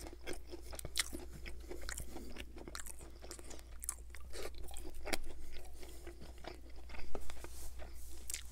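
Close-miked chewing of crispy fried popcorn chicken: irregular sharp crunches between softer wet chewing, with a louder burst of crunching about seven seconds in.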